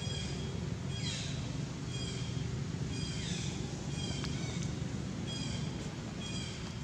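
Infant long-tailed macaques giving short, high-pitched squeaky calls about once a second, a few of them sliding down in pitch, over a steady low rumble.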